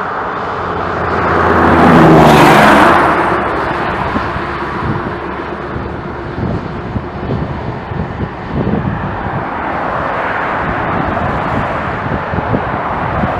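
CFM LEAP-1A turbofan engines of an Airbus A320neo running as the aircraft rolls along the runway. The engine noise swells with a low hum to its loudest about two seconds in, then settles into a steadier, lower noise.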